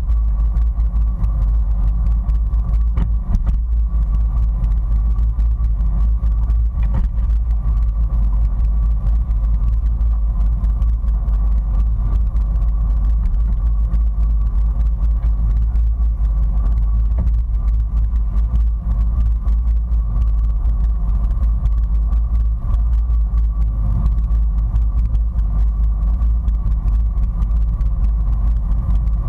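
Sea-Doo personal watercraft engine idling with a steady hum, under a heavy low rumble of wind buffeting the microphone.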